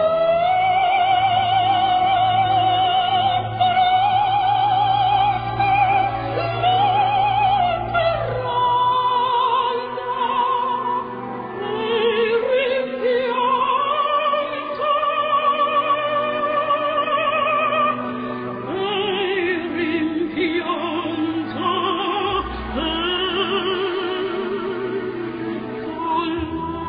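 Operatic singing as background music: a voice holding long notes with a wide vibrato and moving from note to note every few seconds, over a steady low accompaniment.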